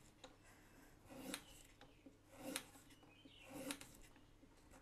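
Kitchen knife slicing a peeled carrot lengthwise into thin slabs on a countertop. Three slow cuts about a second apart, each a short scraping stroke through the carrot ending in a light tap of the blade on the surface.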